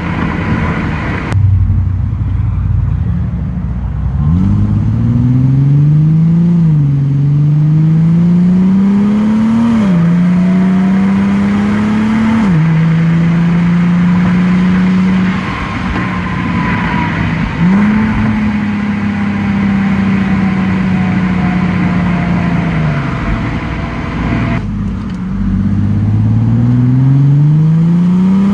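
Infiniti G37 sedan's 3.7-litre V6 through the stock exhaust, picked up at the rear bumper, accelerating through the gears. The pitch rises and drops at three upshifts in quick succession, then the car cruises steadily, eases off, and pulls hard again near the end.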